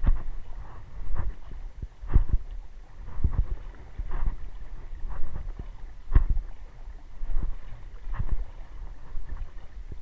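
A person wading through shallow water: a slosh and a low thump about once a second with each stride.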